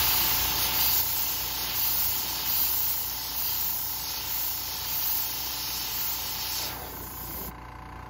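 Airbrush spraying paint onto a fishing lure body: a steady hiss of air and paint that stops near the end.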